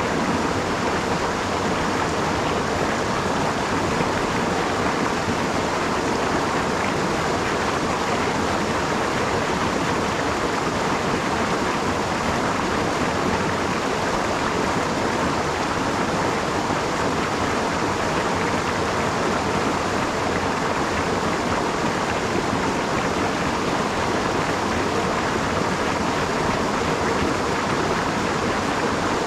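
A small brook rushing steadily as it spills over a low rocky ledge and runs over stones.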